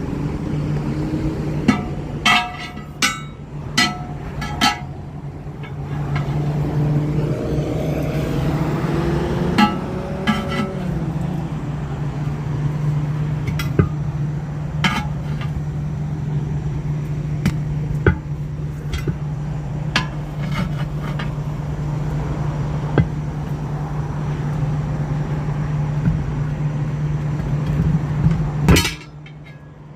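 Hammer blows with a metallic ring on a steel truck wheel as a semi-trailer tire is smacked onto its rim. There are five quick strikes early on, then single blows every few seconds, all over a steady low engine hum. The hum stops suddenly near the end.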